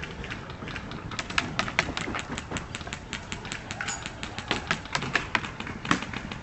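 Airsoft guns firing: rapid, irregular sharp clicks and snaps, several a second, some coming in quick strings.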